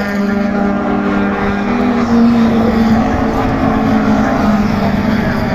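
Touring race cars at full throttle on the circuit, their engines howling at high revs with the pitch holding fairly steady and drifting slightly up and down.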